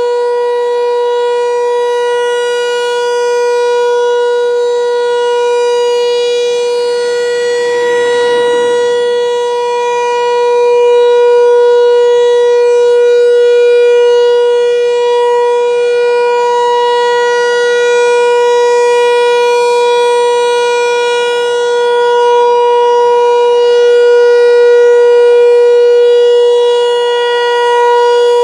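American Signal Corporation T-128 outdoor warning siren sounding a steady wail at full speed on one held pitch, its loudness slowly swelling and fading, during a routine monthly siren test. A brief rushing noise passes under it about eight seconds in.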